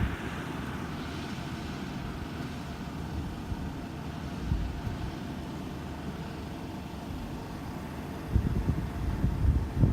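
Kubota 128-horsepower six-row combine harvester's diesel engine running steadily. Irregular low thumps grow louder over the last second and a half.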